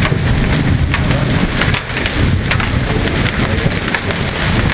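Heavy rain mixed with hail pelting down: a dense steady hiss of rain with many sharp ticks of hailstones striking.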